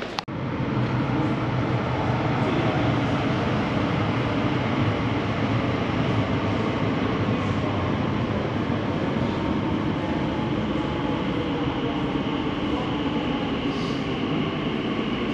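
London Underground tube train running steadily, an even rumble of wheels and running gear on the track.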